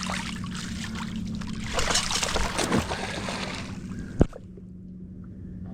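Shallow water sloshing and splashing while a sand anchor is reset, over a steady low hum, with one sharp knock about four seconds in; after the knock it goes quieter.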